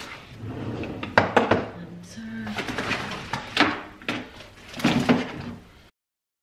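Small cosmetic bottles, tubes and boxes being handled and set down on a wardrobe shelf and in a pull-out tray, with several sharp clacks among the rustling. The sound cuts off suddenly near the end.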